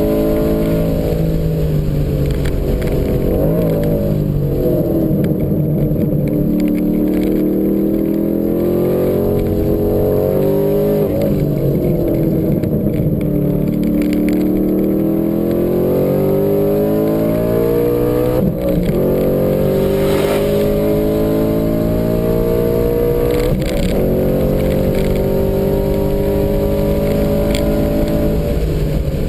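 2012 Ford Mustang Boss 302's 5.0-litre V8 heard from inside the cabin at racing speed. It slows for a corner with heel-and-toe throttle blips on the downshifts, then accelerates hard, the pitch climbing, with two upshifts in the second half.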